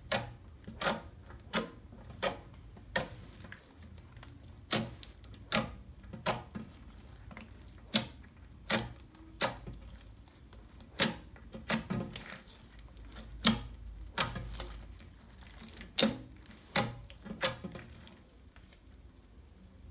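Fingers pressing and poking clear glitter slime mixed with foam beads, squeezing out about twenty sharp pops and clicks of trapped air at an irregular pace; the pops stop a couple of seconds before the end.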